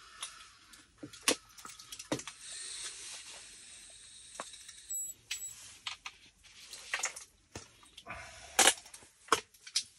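Scattered small clicks and taps of ice-fishing tackle being handled: rods, reels and gear boxes. A rustling hiss runs for about two seconds in the middle, and two short high beeps sound about halfway through.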